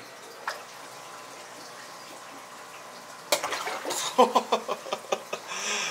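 A large aquarium fish lunging at a piece of chicken held at the water's surface: after about three seconds of steady background hum, a sudden burst of splashing and slapping water as it strikes and thrashes.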